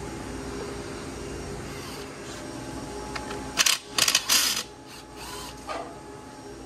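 A quick run of mechanical clicking and rasping strokes from tool work on a dirt bike's steel parts, about three and a half seconds in and lasting about a second. Under it runs a steady machine hum.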